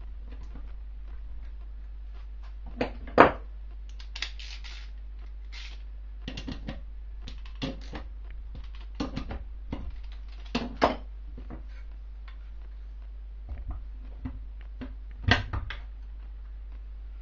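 Irregular clicks, clinks and knocks of a hand tool and metal parts on an aluminium NSU Max 250 gearbox housing as a bolt is worked in and the gears are handled, with a few louder knocks about three, eleven and fifteen seconds in. A steady low hum runs underneath.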